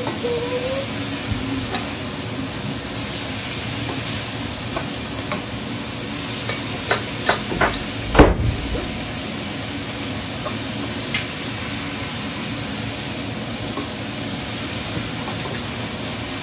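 Food sizzling in a frying pan, with a few sharp clinks of a utensil against the pan about six to eight seconds in, the loudest a knock just past eight seconds.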